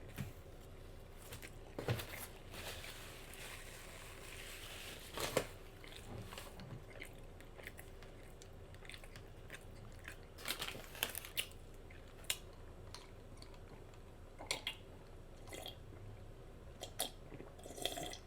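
A person chewing a bacon cheeseburger close to the microphone, with wet mouth smacks and small crunches coming as scattered short clicks, several in quick runs.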